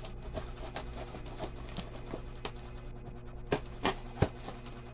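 Scattered small clicks and taps of a parcel being handled and opened by hand, with three louder knocks in quick succession near the end. A low steady hum runs underneath.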